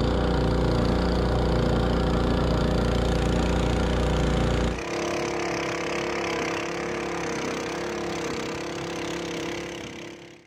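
Small outboard motor on an outrigger fishing boat running steadily under way. About halfway through the engine note changes and the deep rumble drops away, and the sound fades out at the end.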